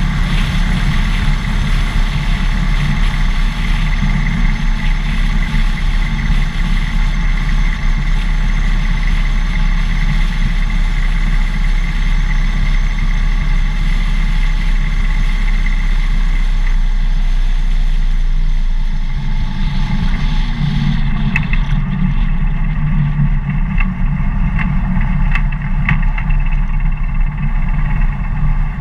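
Harley-Davidson Dyna Fat Bob's V-twin engine running steadily on the move, with wind and road noise on the microphone. About two-thirds of the way through the wind hiss drops away, leaving mostly the engine's low note.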